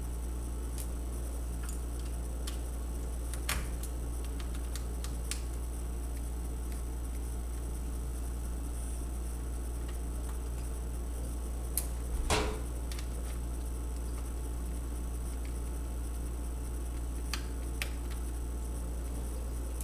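Steady low hum with a few faint clicks and one brief scrape about twelve seconds in: a #0 Phillips screwdriver taking out the small screws that hold a laptop's LCD panel.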